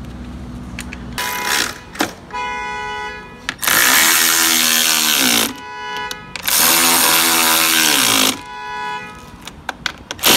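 Cordless power ratchet driving the bolts of a roof rail: two loud runs of about two seconds each, the motor's pitch falling away at the end of each, with a softer steady whine before and after.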